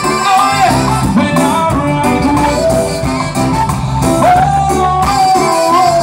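Live band music: a saxophone plays a gliding, held melody over electric guitar and the rest of the band.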